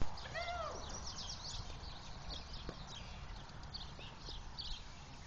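A single short animal call that rises and falls in pitch about half a second in, over small birds chirping throughout.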